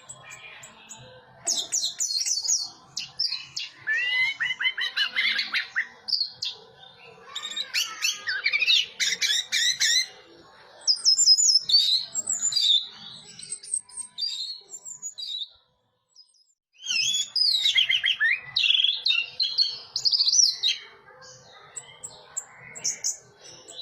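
Orange-headed thrush (anis merah) singing in the 'teler' style: several bursts of rapid, varied high whistled phrases, each a few seconds long, with short pauses between them.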